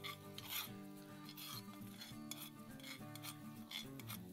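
Metal spoon scraping and stirring melted butter and minced garlic in a cast iron skillet, in irregular rasping strokes. Background music plays underneath.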